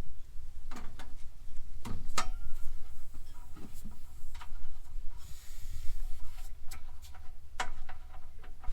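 Pressurized alcohol stove's fuel tank being opened at its filler cap: several metal clicks and knocks from handling the cap, and a short hiss of air about five seconds in as the tank pressure is released.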